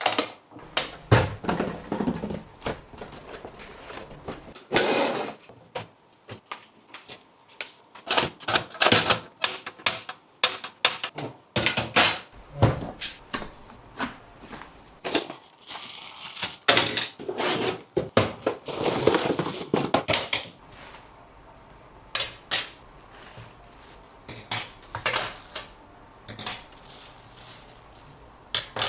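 Hard objects being handled: irregular clatter and knocks, with stretches of denser rattling and scraping, thinning out to scattered clicks in the last third.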